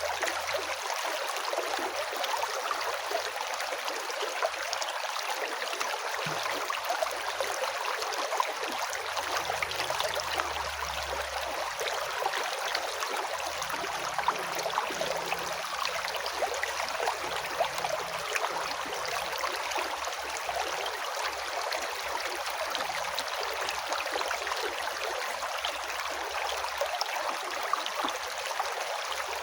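River water flowing and splashing steadily over rocks, a continuous rushing with fine bubbling.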